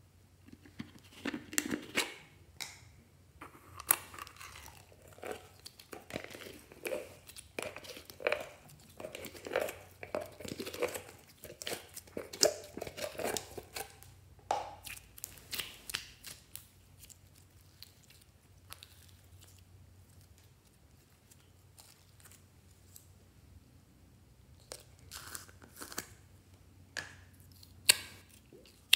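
Thick red slime pulled from its tub and squeezed by hand, making sticky crackling and tearing sounds in an irregular run of small clicks and pops. It goes quiet for several seconds past the middle, then a few more clicks come near the end as a tub of pink jelly slime is handled.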